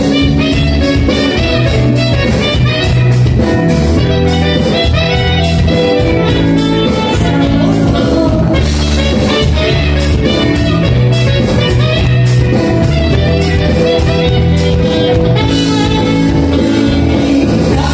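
Live band playing an instrumental passage: sustained chords over a drum kit keeping a steady beat.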